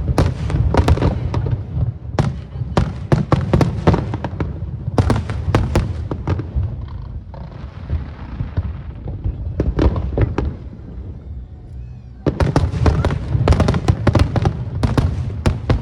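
Aerial fireworks bursting in rapid succession, sharp cracks over a deep booming rumble. The bursts thin out in the middle and resume as a dense barrage about twelve seconds in.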